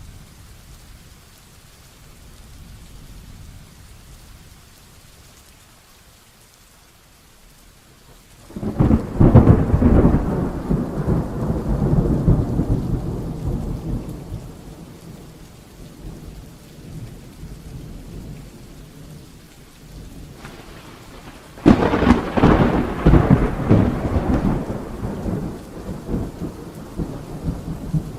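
Steady rain with two claps of thunder, the first about a third of the way in and the second about three quarters of the way in. Each starts suddenly and rumbles away over several seconds.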